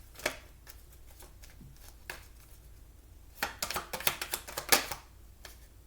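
Tarot cards being handled and shuffled: a couple of single card snaps, then a quick run of crisp card clicks about three and a half seconds in.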